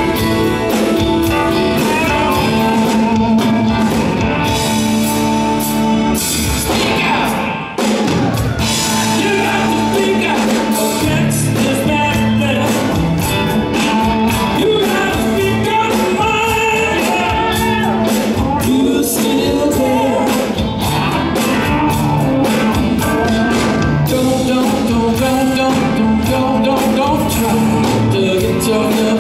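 Live rock band playing, with electric guitar, bass guitar and a man singing lead vocals; the sound dips briefly about eight seconds in.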